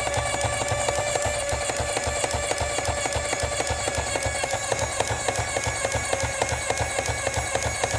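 An electric toy mechanism run on high voltage, clicking rapidly and evenly, about seven times a second, each click with a low thump, over a steady ringing tone.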